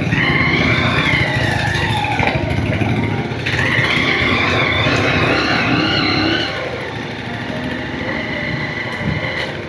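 Motorcycle engines running at low speed over a rough dirt track, the revs rising and falling. The sound is louder for the first six seconds or so, then eases off.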